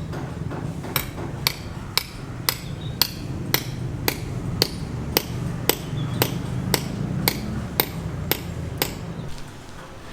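Hammer striking about sixteen times at a steady pace of roughly two blows a second, each blow with a short ringing tone, over a steady low hum.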